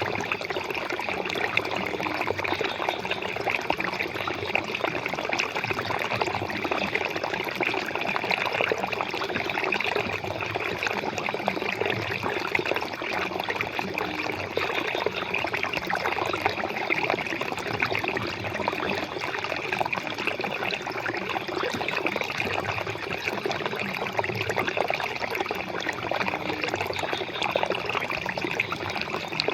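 Flowing water, running steadily and unbroken.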